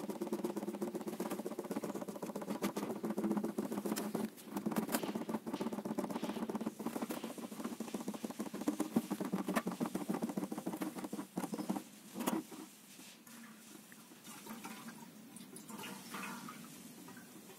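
Diesel glugging and splashing as it is poured from a metal jerrycan into the diesel heater's fuel tank. The pouring sound is irregular and becomes much quieter about twelve seconds in.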